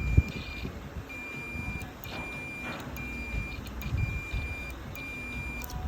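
Multimeter continuity beeper on a motorcycle clutch switch: one steady high tone that sounds in about six irregular beeps, each under a second long, as the switch contacts close and open.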